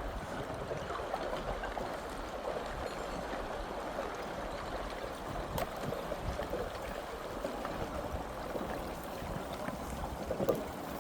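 Floating pieces of broken river ice knocking and jostling against each other in the water: a dense, steady crackle of small clinks and clicks, with a few louder knocks. A low wind rumble on the microphone runs underneath.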